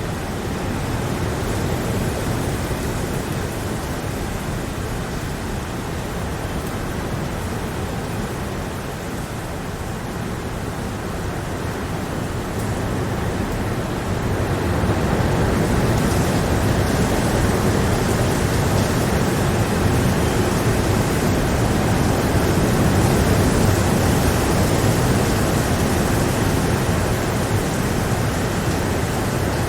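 Steady heavy rain, an even hiss with a low rumble beneath it, which swells a little louder about halfway through.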